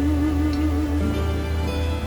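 Slow, tender background music between sung lines, with a held, wavering note that stops about a second in.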